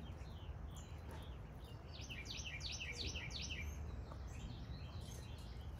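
A bird's quick run of about seven short falling chirps, a couple of seconds in, over a faint steady low rumble of outdoor background noise.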